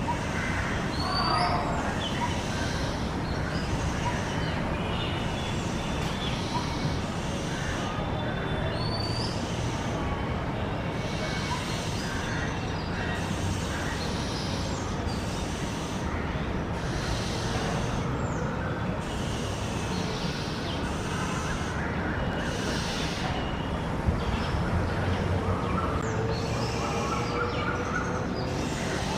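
Oriental magpie-robins giving an unusual call: short, sharp upswept whistles every several seconds, with a few softer lower calls, over a steady background noise.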